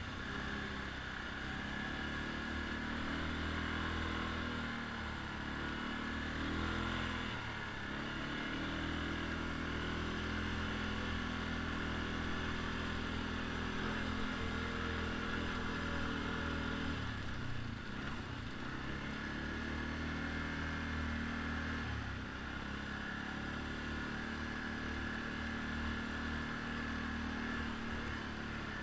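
ATV (quad bike) engine running at speed over sand, heard from the quad that carries the camera. Its pitch dips and climbs back twice, about a quarter of the way in and again just past the middle, as the throttle is eased and reopened.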